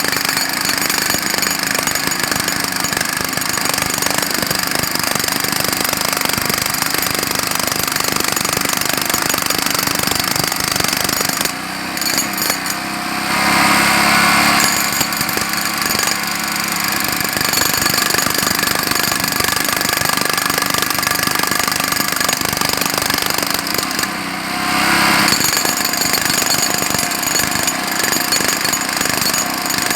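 Jackhammer hammering continuously in fast, even strokes. It eases and changes tone briefly twice, near the middle and again later on.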